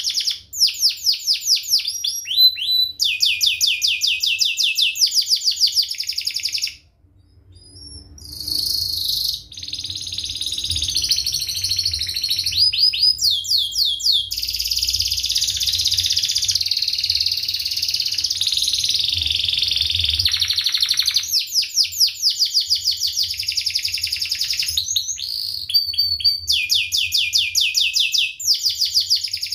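Domestic canary singing loud, fast song: runs of rapid repeated chirps and long rolling trills, with a short pause about seven seconds in.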